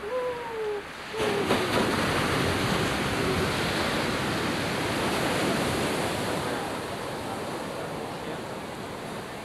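Steady rushing noise of surf and wind. It starts suddenly about a second in and slowly eases off. A short falling voice-like cry is heard at the very start.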